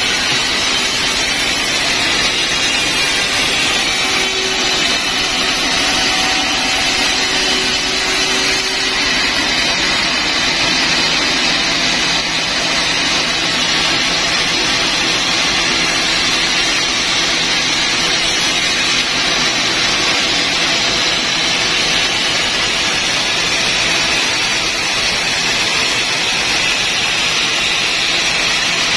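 Large log band sawmill running steadily, its blade cutting lengthwise through a big log, a continuous high-pitched machine noise.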